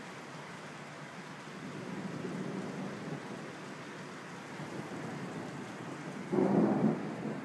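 Steady rain during a thunderstorm, with a low swell of thunder about two seconds in and a louder sudden burst about six seconds in that lasts under a second.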